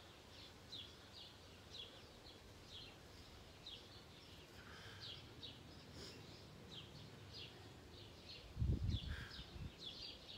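A small songbird calling over and over in short high chirps, about two a second, over faint outdoor hiss. A short low rumble comes near the end.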